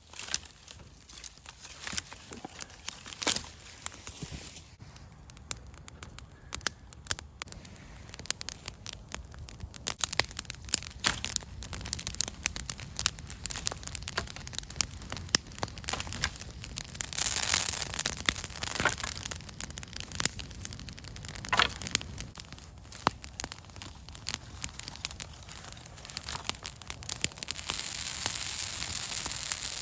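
Brush pile burning, crackling with many sharp pops over a hiss that builds up and grows louder toward the end.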